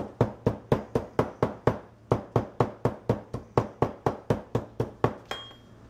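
Metal meat mallet pounding garlic cloves on a paper plate against the countertop: a steady run of knocks, about four a second, that stops about five seconds in.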